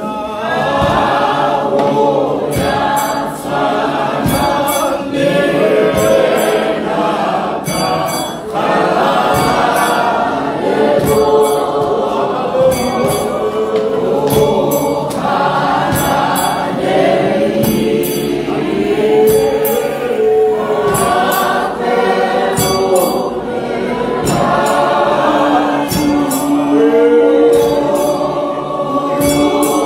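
Many voices singing a gospel worship song together, with short, sharp beats recurring at a regular pace.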